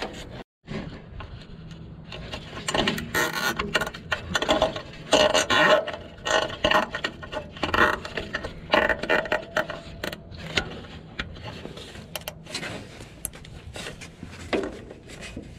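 Nylon zip ties being threaded and pulled tight around a wiring harness: a busy run of irregular ratchety clicks and scraping, densest in the first two-thirds and sparser toward the end.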